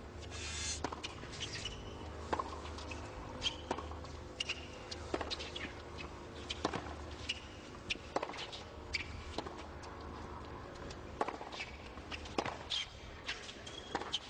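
Tennis rally on a hard court: ball struck by racket strings about every second and a half, with bounces and short squeaks of shoes on the court surface.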